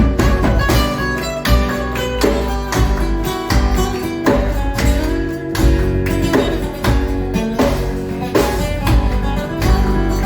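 Live band playing an instrumental passage led by guitar, over bass and a steady beat.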